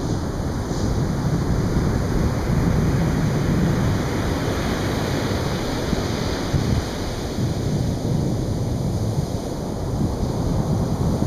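Atlantic surf breaking and washing on a beach, a continuous rumbling wash that swells and eases over several seconds, with wind buffeting the microphone.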